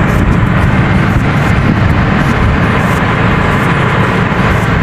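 Excavator engine running steadily at close range.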